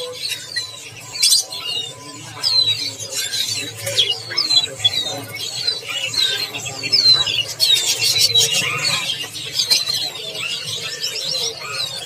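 Many caged songbirds chirping and calling over one another: a constant scatter of short, high, sweeping chirps. Underneath is a low, steady background murmur.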